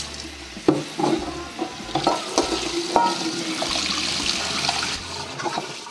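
Water running from a kitchen tap into a bowl to make an ice bath for boiled eggs, with several sharp clinks and knocks in the first few seconds.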